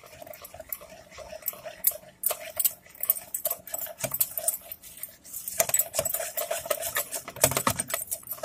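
Wire whisk beating thick flour-and-milk batter in a plastic bowl: rapid, irregular clicking and scraping of the tines against the bowl, louder from about halfway through. A steady mid-pitched tone runs underneath.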